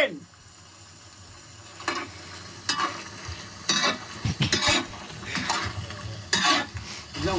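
Coarse crystal salt being stirred in a large cooking pan, gritty scraping strokes roughly once a second starting about two seconds in, over a low steady frying hiss.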